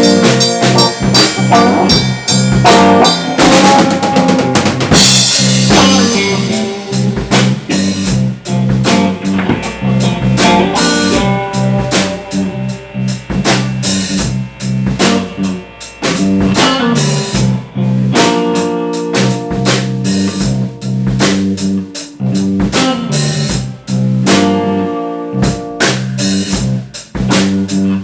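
A rock band jamming without vocals: a drum kit keeping a busy beat, with bass and electric guitar.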